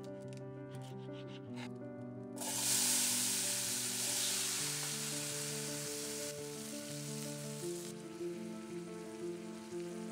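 A few knife taps through sausage onto a wooden cutting board, then, about two seconds in, a sudden loud sizzling of diced tomatoes frying in hot oil in a stainless steel pan, easing a little near the end.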